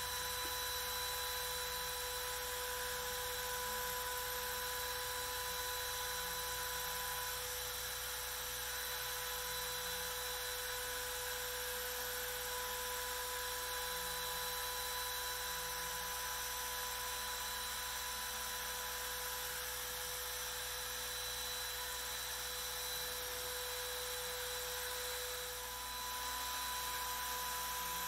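The spindle of the Carve King 2 CNC router, a compact trim router, runs with a steady high whine as its V-bit carves shallow grooves into MDF. Part of the whine drops out and returns a couple of times as the cut moves along.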